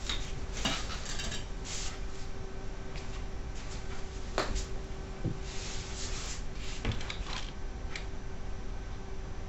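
Rustling of clothing and scattered clicks and knocks as a person gets up from an armchair and moves right past the microphone, over a steady faint hum.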